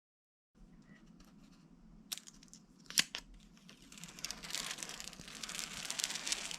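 Packaging being handled: crinkling and tearing, with a few sharp clicks, the rustling growing denser in the second half.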